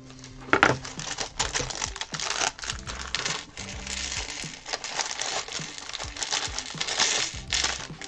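Plastic parts bag crinkling and rustling as a hand rummages through loose plastic building bricks, with a dense run of small irregular clicks and crackles.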